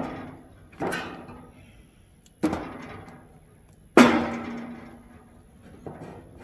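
Split oak firewood pieces dropped one at a time into the steel firebox of an offset smoker: a series of hard wooden knocks, each with a short metallic ring from the firebox, the loudest about four seconds in.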